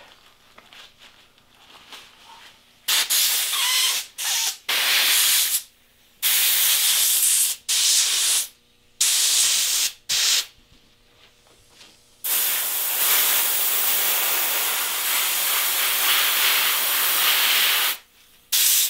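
Airbrush hissing as it sprays paint. It comes in a run of short bursts of one to two seconds each, then one long burst of about six seconds.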